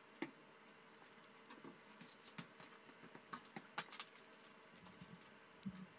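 Near silence: room tone with a few faint, scattered ticks and clicks.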